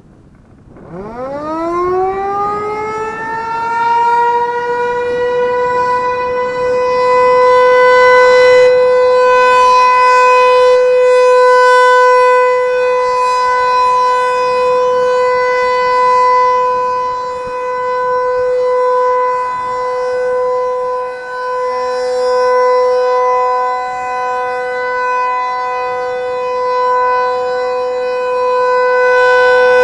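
Federal Signal 508-128 outdoor warning siren winding up from a standstill about a second in, its pitch rising and levelling off within a few seconds into the steady Full Alert tone. The level swells and dips as the rotating siren head turns.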